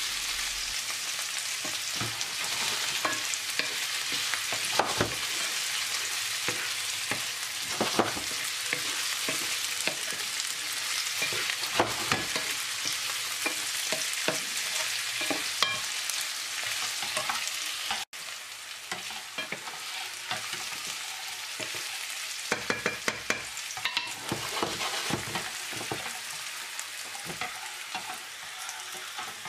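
Small minced-meat meatballs and onion sizzling in oil in a Teflon frying pan, stirred with a wooden spoon that knocks and scrapes against the pan. The sizzle drops out for an instant about two-thirds of the way through and returns slightly quieter, with a quick run of spoon knocks soon after.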